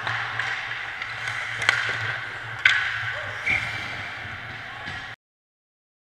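Ice hockey play at close range: skates scraping on the ice and sticks and puck clacking, with two sharp cracks from stick or puck impacts about a second apart near the middle, over a steady low hum. The sound cuts out abruptly about five seconds in.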